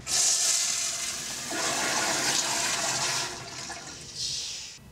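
Water rushing and splashing into a toilet. It starts suddenly as a loud hiss, runs on for about four seconds and fades away near the end.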